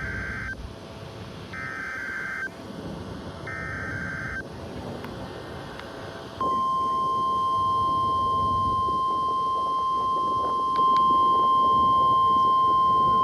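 Emergency Alert System header on NOAA Weather Radio: short, buzzy SAME data bursts under a second long, repeating about every two seconds. About six seconds in, the steady 1050 Hz weather radio alert tone starts and holds.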